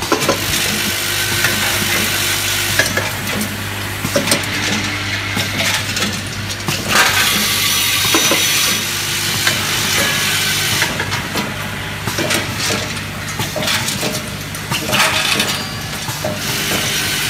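Vibratory bowl feeders of a hardware counting and packing machine running, with a steady low hum under a dense rattle of screws and small metal parts clattering around the bowls and along the feed tracks.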